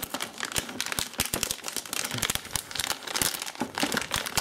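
Metallised anti-static plastic bag crinkling as it is handled and pulled open to get a motherboard out, a dense run of crackles.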